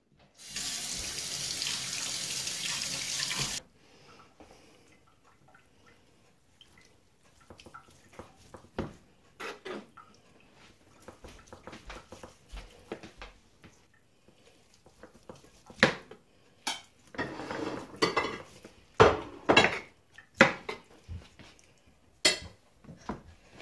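Water running from a kitchen tap for about three seconds, then a long knife slicing through a rib roast on a plastic cutting board: scattered short clicks, knocks and scrapes of the blade and meat against the board, a few of them louder after the middle.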